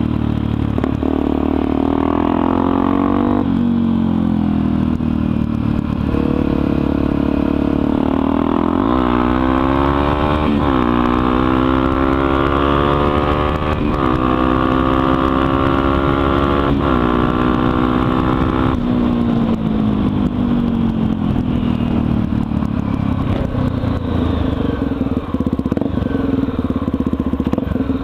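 Honda XR250 Tornado's 250 cc single-cylinder four-stroke engine running through a de-baffled (deboxada) exhaust on the move. Its revs climb and drop several times as it shifts through the gears, then settle to a lower, steadier note about two-thirds of the way in.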